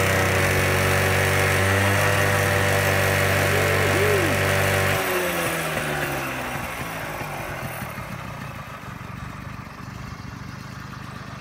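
1981 Honda PA50 moped's small two-stroke single-cylinder engine idling steadily. About five seconds in its steady note ends and the sound fades away.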